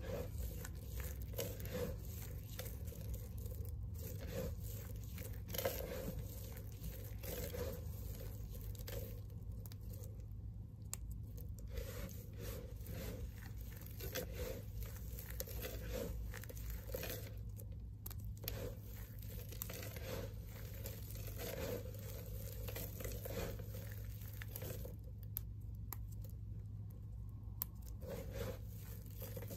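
Hands raking, scooping and squeezing a heap of crushed dry bar soap chips, a continuous dense crunching and crackling of small soap pieces rubbing and breaking against each other.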